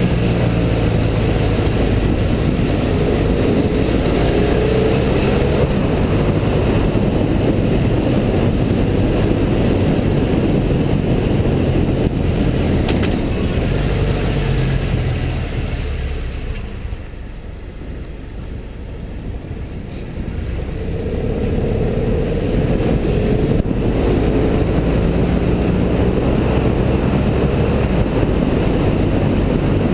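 BMW F650GS motorcycle engine under way with heavy wind rushing over the camera microphone. Around two-thirds of the way through the noise drops away for a few seconds as the bike eases off for a bend, then builds again as the engine pulls away with a rising note.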